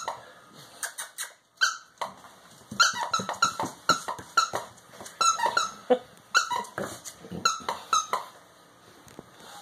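Squeaky plush dog toy being squeezed over and over by hand. It gives a quick run of short, sharp squeaks, about three a second, with a couple of brief pauses.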